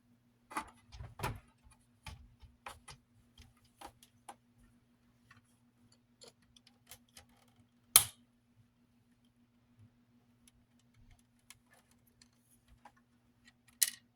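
Scattered light plastic clicks and taps of small plastic clips being fitted to a fan's guard, with one loud click about eight seconds in.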